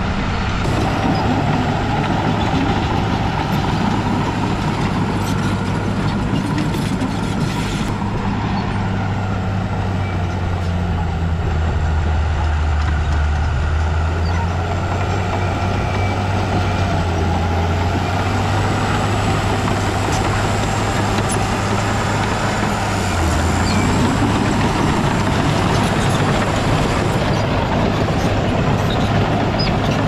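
Heavy diesel engine of an earthmoving machine running steadily at work. Its note sinks lower for a stretch in the middle and picks back up about three quarters of the way through.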